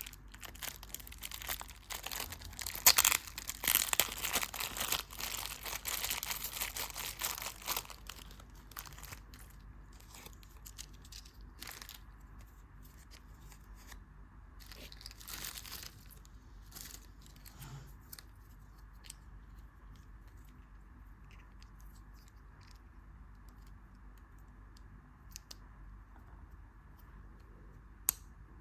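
Candy wrapper being torn open and crinkled, a dense run of crackling for about the first eight seconds, then only scattered soft crinkles and taps.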